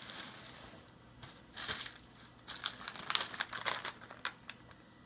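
Packing material crinkling and rustling as a box is unpacked by hand, in a scatter of sharp crackles that grow busiest from about two and a half seconds in.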